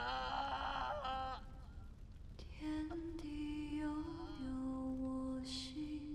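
A man's anguished, quavering cry of pain in the first second or so, then a slow melody of long held notes that step in pitch.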